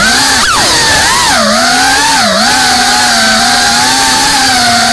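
FPV quadcopter's brushless motors and propellers whining, the pitch dipping and rising again a few times as the throttle is worked, then holding steady through the second half.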